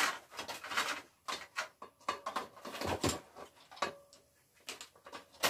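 Irregular clicks, knocks and scraping of metal and plastic parts being handled while a CRT computer monitor is stripped for its copper.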